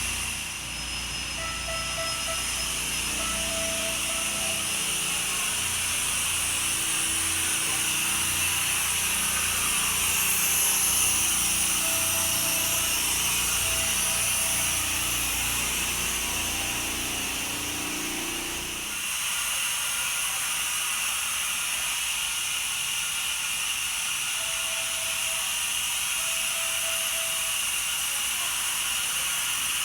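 Continuous hiss of compressed air escaping from the underfloor equipment of a Kintetsu 9020-series electric train standing still, an abnormal air leak whose cause was never found. A lower rumble under it stops suddenly about two-thirds of the way through, leaving the hiss.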